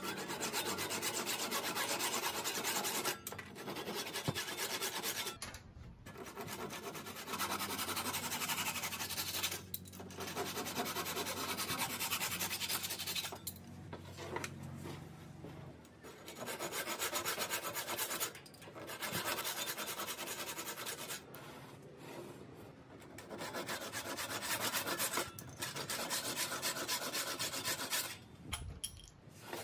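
Bahco flush-cut hand saw trimming protruding wooden corner splines flush with the tray's mitred corners: quick back-and-forth strokes in runs of a few seconds, broken by short pauses as the saw is repositioned.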